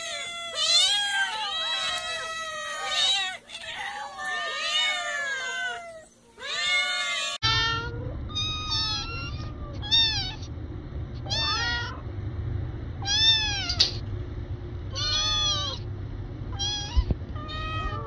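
Several cats meowing over one another. About seven seconds in it changes suddenly to a single cat's high-pitched meows, repeated every second or two over a steady low rumble.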